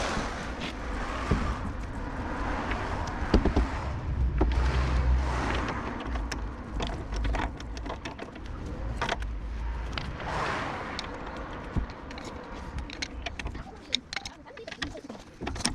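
Citroën C1 rear wheel spun by hand on its worn wheel bearing hub: a rough roaring sound with a low rumble that swells and dies away several times as the wheel is spun again, with a few clicks. The roar is the sign of the worn bearing.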